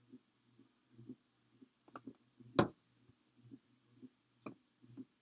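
Quiet craft-table handling: soft taps and clicks as a paper flower is handled and a plastic glue bottle is set down, the loudest a sharp knock about halfway through. A faint low pulsing repeats about twice a second underneath.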